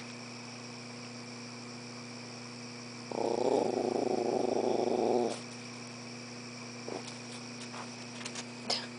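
A dog growling low at a toad, one rough growl of about two seconds starting about three seconds in.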